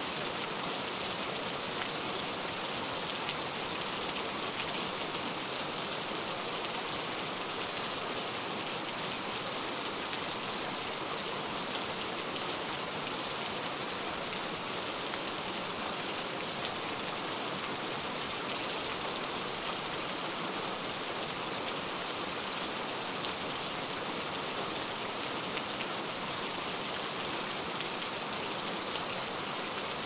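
Steady rain sound: an even hiss with faint ticks of drops.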